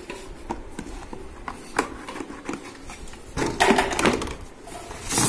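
Hard plastic toy parts of a toy automatic baseball pitcher knocking and clicking as its green cup is handled and pushed into the red base to lock in place. The knocks are scattered, with a louder cluster of them about three and a half seconds in.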